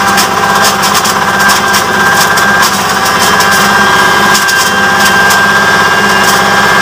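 Small stationary diesel engine driving a grinding mill as dried corn cobs are fed in. The engine runs with a steady fast beat under a high steady whine from the mill, and the cobs crack and rattle irregularly as they are smashed.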